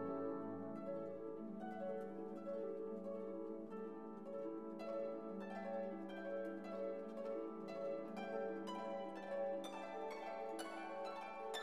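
Background music: a melody of plucked strings over a held low note, the plucking growing busier in the second half.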